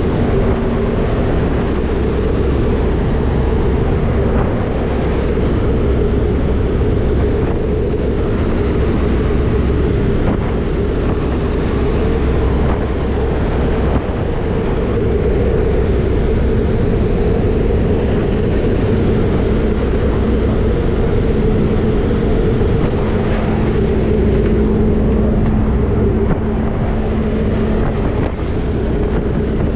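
Steady engine drone of a skydiving jump plane in flight, heard from inside the cabin, with wind rushing through the open jump door.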